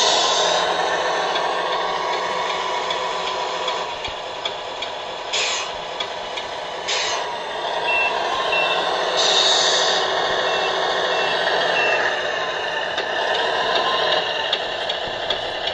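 1/12-scale RC Oshkosh M1070 8x8 truck crawling over an obstacle: a steady whine from its electric drive that rises and falls in pitch as it moves, with several short hisses. In the middle comes a run of short, evenly spaced reversing beeps, about two a second.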